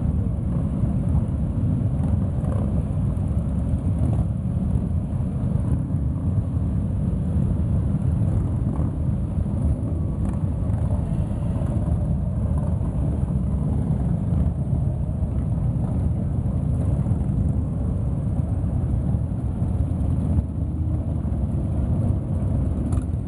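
Many motorcycles, a lot of them cruisers, riding slowly past one after another, their engines blending into a steady, loud low rumble.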